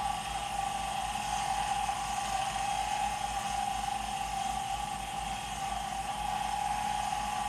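Smithy 1220 LTD 3-in-1 mill-lathe's milling spindle running steadily, turning a 3/16-inch end mill, with a steady whine.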